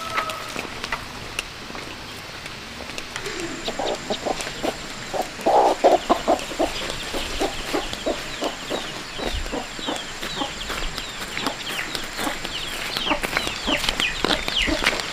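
Chickens clucking in a long series of short calls, loudest a few seconds in. In the second half come many short, high calls falling in pitch.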